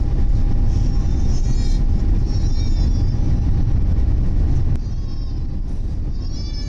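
Deep, steady rumble inside the cabin of an Airbus A350-900 moving along the runway for take-off: engine and landing-gear noise. It eases somewhat about five seconds in, with faint wavering high tones coming and going above it.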